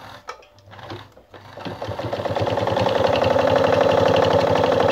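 Anker RZ sewing machine sewing a straight stitch at its longest stitch length: a fast, even clatter of the needle mechanism that starts about a second and a half in, picks up speed and then runs steadily.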